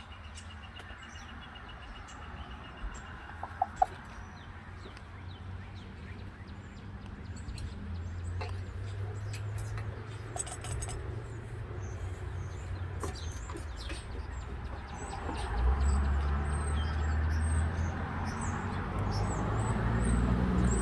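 Wild birds chirping and singing, with wind buffeting the microphone as a low rumble that grows stronger in gusts through the second half. A few sharp clicks a few seconds in.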